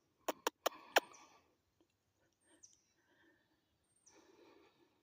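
A dog knocking at an old muffler: four sharp knocks in quick succession about a second in, then faint rustling. Short high chirps that fall in pitch come a few times.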